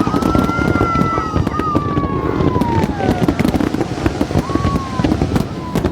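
Fireworks crackling and popping in rapid succession, with long whistles that slowly fall in pitch, over a steady low rumble of crowd and outdoor noise.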